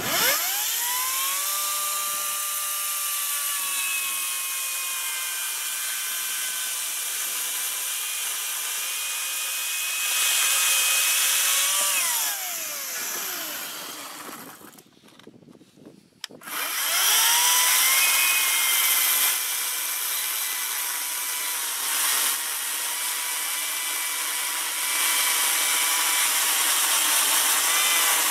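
Echo 58-volt battery chainsaw spinning up with a rising whine and cutting through a log, its electric motor and chain running steadily with louder stretches under load. About twelve seconds in it winds down with a falling whine and stops, then after a short pause spins up again and cuts on.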